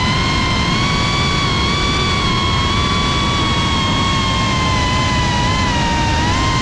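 FPV quadcopter's brushless motors and propellers whining steadily at a high pitch that wavers slightly with throttle changes, over a rush of air noise.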